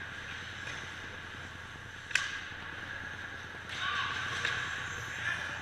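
Ice hockey play close to the net: one sharp crack about two seconds in, then ice skates scraping hard on the ice near the net for about a second and a half.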